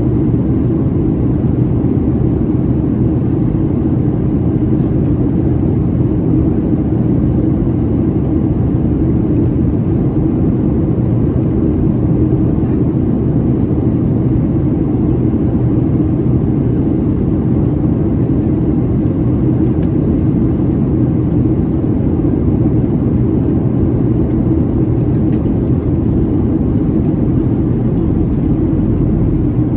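Steady cabin noise of a Boeing 737-700 in descent, heard from a window seat inside the cabin: the even, low roar of airflow and its CFM56-7B engines, with no change in pitch or level.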